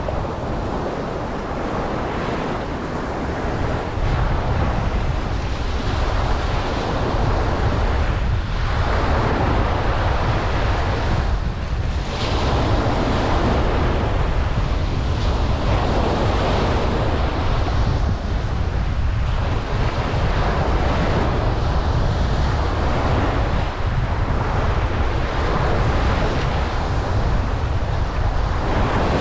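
Ocean waves breaking and washing on a beach, the surf swelling and easing every few seconds, with wind rumbling on the microphone.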